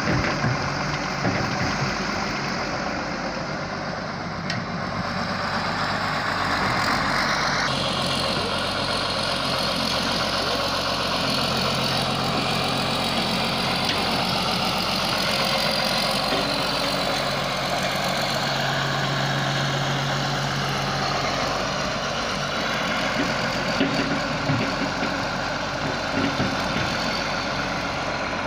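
Hyundai wheeled excavator's diesel engine running steadily as the machine digs sand and swings to dump it into a tractor trolley, its note strengthening for a few seconds at a time as the hydraulics take load.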